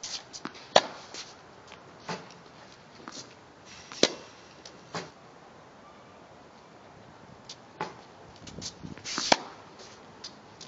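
Tennis racket striking balls on a hard court: three loud, sharp pops, about a second in, about four seconds in and about nine seconds in, with softer knocks between them.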